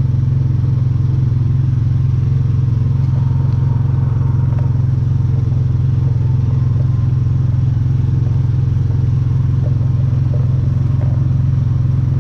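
John Deere Gator utility vehicle's engine running steadily under way while hauling a load, with an even low drone.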